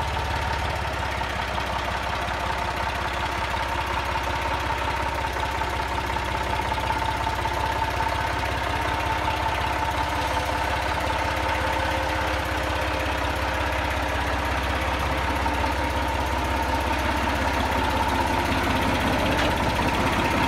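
Ford 4630 tractor's three-cylinder diesel engine running steadily, a low rumble with a steady high whine over it.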